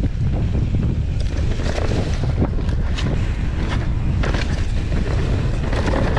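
Wind rushing over the microphone as a mountain bike descends a dirt singletrack at speed, with scattered clicks and rattles from the bike over the rough trail.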